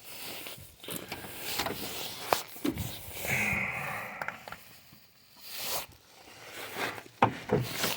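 Footsteps and handling noises: scattered knocks and clicks, a brief rustle about three seconds in, and a few sharper knocks near the end.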